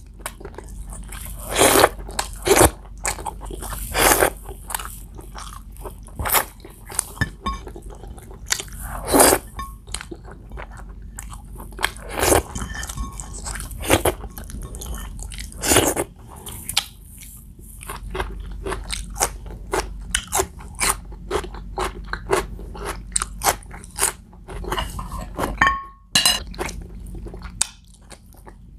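A person eating close to the microphone, biting and chewing on pieces of saucy pork curry held in the fingers. It comes as many short, wet smacking and crunching clicks at uneven intervals.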